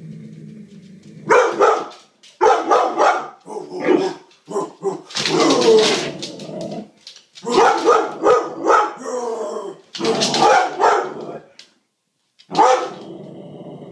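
Dog growling low and steadily, then barking repeatedly in about seven loud bursts, some short and some drawn out, as it reacts to a toy dragged across the floor.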